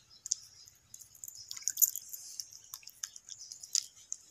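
Wet hand patting a ball of cooked bajra (pearl millet) dough flat on a damp cotton cloth: a run of soft, irregular wet taps and squishes.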